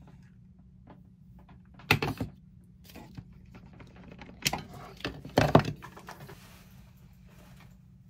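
A few sharp knocks and clatters over a low steady hum: two about two seconds in, then a louder cluster between four and a half and five and a half seconds.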